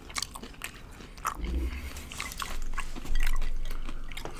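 Close-miked chewing of crunchy hard-shell tacos: irregular crackling crunches and wet mouth clicks.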